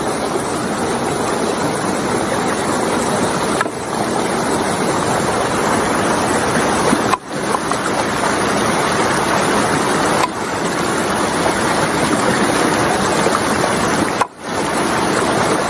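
Shallow rocky stream running close by, a steady loud rush of water that dips briefly every few seconds.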